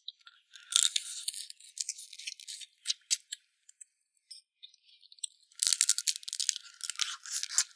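Wet, sticky eating sounds of people gnawing and chewing soft braised pork trotters, a dense run of small smacking clicks. It stops for a couple of seconds in the middle and resumes more thickly about five and a half seconds in.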